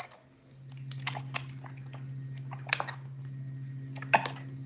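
A quiet textural sound sample: irregular crisp clicks and crackles over a steady low hum that fades in during the first second. It is meant to suggest stepping on a material.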